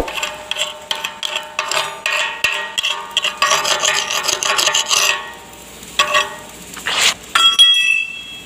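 Chipping hammer rapidly striking fresh E7018 (LB-52) stick weld beads on a steel tank, knocking off slag, with the steel plate ringing under the blows. The strikes stop after about five seconds and a few more follow. Near the end come a scrape and a loud ringing metallic clang.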